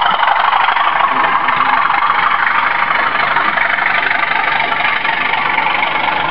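Model railway train of tank wagons hauled by a diesel locomotive running past on the track: a steady, even rolling noise.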